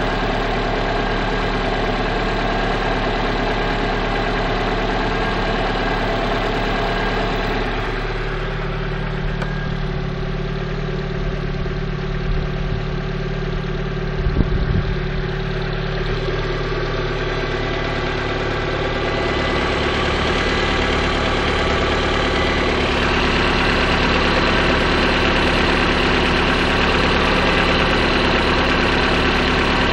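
Lada Priora's VAZ-21126 1.6-litre 16-valve four-cylinder engine idling steadily while still warming up after a cold start, with a knock that the owner takes for piston knock and that fades as the engine warms.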